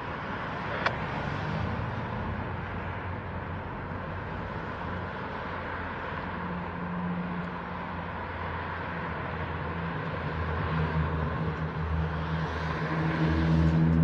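Norfolk Southern diesel-electric locomotive engine running with a steady low drone as the freight train approaches slowly, growing louder in the last few seconds. A hiss rises over it near the end.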